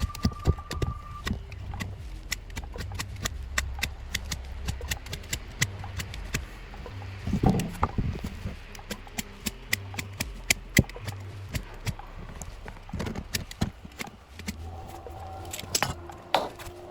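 Irregular, rapid clicks and knocks from hand-tool work on a rake, with a louder cluster of knocks about seven and a half seconds in.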